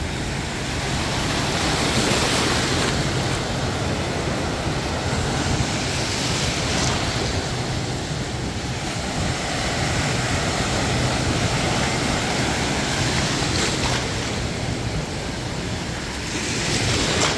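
Ocean surf: waves breaking and washing up the beach in a continuous rush that swells and eases every few seconds, with wind buffeting the microphone.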